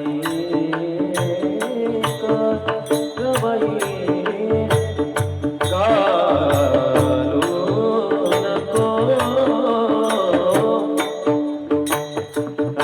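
Devotional kirtan music: sustained held tones under a steady beat of sharp percussion strokes, with a wavering sung melody line coming in strongly about six seconds in.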